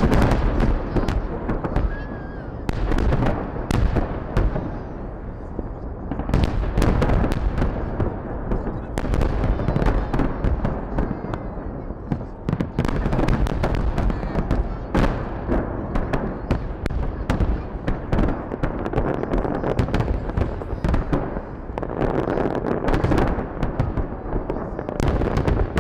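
Fireworks display: shells bursting in many sharp bangs in quick, irregular succession, over a continuous low rumble.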